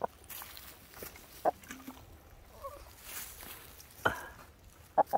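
Chicken clucking: about four short, sharp calls spaced over a few seconds, the loudest two near the end.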